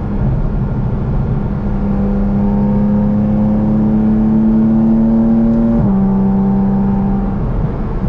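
Porsche 718 GT4 RS's 4.0-litre flat-six pulling steadily under load, heard from inside the cabin. Its note climbs slowly, drops sharply on a gear change about six seconds in, then holds briefly and eases off near the end.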